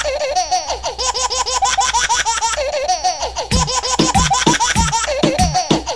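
Electronic music track: a fast, high, warbling melody repeating in quick curling notes, joined about three and a half seconds in by deep bass notes that slide downward on each beat.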